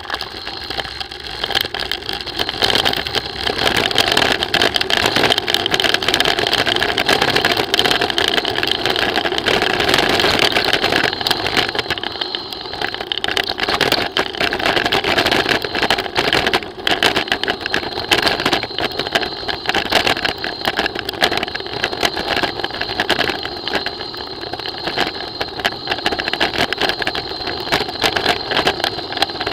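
Mountain bike rolling downhill over a rough gravel road: steady tyre and wind noise with constant small rattles, and a thin steady whine running through it.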